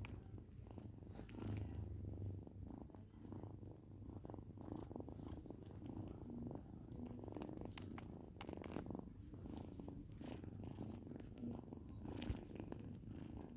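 Domestic cat purring steadily, a low continuous rumble.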